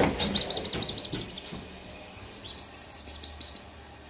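A bird singing two runs of quick, high, repeated chirps, the first just after the start and the second about halfway through. A single sharp knock sounds right at the start.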